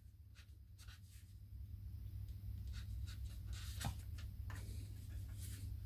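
Marker pen writing on a white sheet: faint, short, scratchy strokes that start about a second and a half in, with a sharper tap near four seconds.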